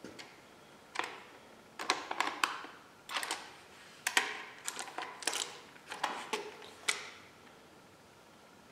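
Aluminium handguard bar, bar-end mounting bolt and plastic hand shield clicking and clacking as they are handled and fitted together: a run of sharp knocks and small rattles, some in quick clusters.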